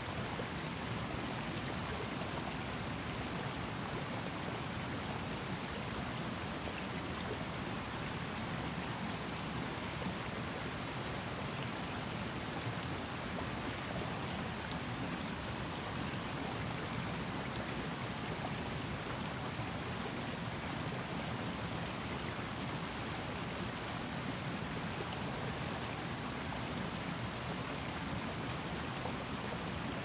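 A Highland river's water running steadily, an even rushing with no breaks or changes.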